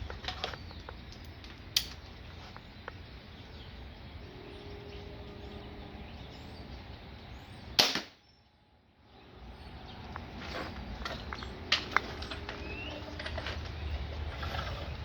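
A single shot from a Wicked Ridge Defender compound crossbow about eight seconds in: a sharp crack as the string releases the bolt. A few lighter clicks come before and after.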